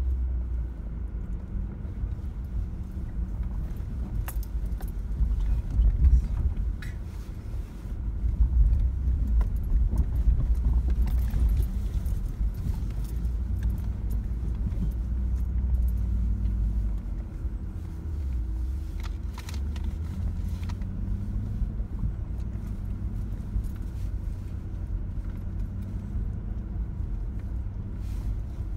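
Inside a Jeep's cabin crawling along a snowy off-road trail: a steady low engine and drivetrain rumble, louder around six seconds in and again for several seconds from about eight seconds, with light rattles and clicks from loose things in the cabin.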